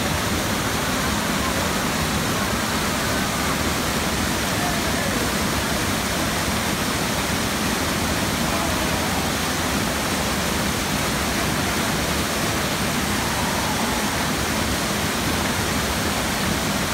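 Waterfall rushing steadily over rock ledges into a pool, a constant loud hiss of falling water.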